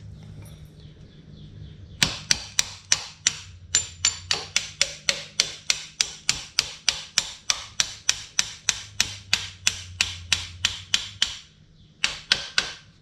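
Ratchet wrench clicking in quick, even strokes, about four a second, as the swingarm pivot bolt of a Honda CBR600 F4 is run in. There is a short pause, then a few more clicks.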